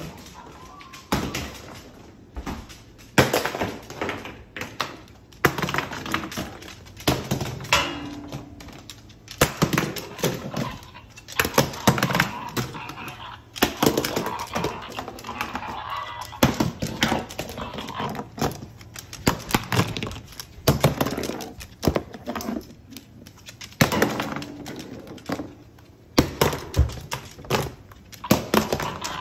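Cockatoo scuffling with its toys on a hardwood floor: a busy, irregular run of knocks, taps and thuds as toys and the bird strike the wood, some of them loud.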